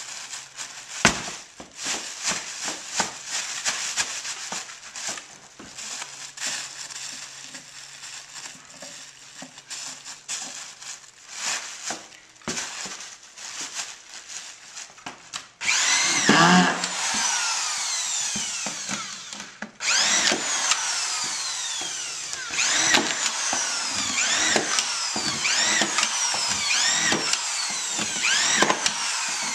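Irregular clicks, creaks and knocks from an OSB crate lid and the packing beneath it as they are pressed down underfoot. About halfway through, a corded electric drill starts up on the lid to fasten it, and its pitch drops again and again as it meets load. It stops briefly a few seconds later, then runs on.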